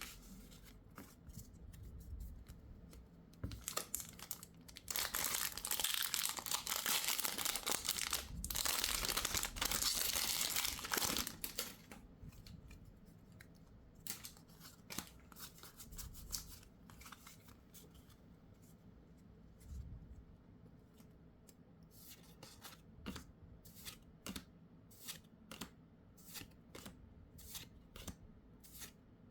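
Packaging being torn open and crinkled for several seconds, most likely a Pokémon booster pack or plastic wrap. It is followed by a run of small sharp clicks and rustles as trading cards are handled one after another.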